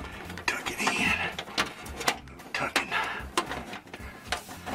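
Sheet-metal exhaust fan housing being worked into a ceiling opening: an irregular run of sharp clicks and knocks with scraping and rustling between them.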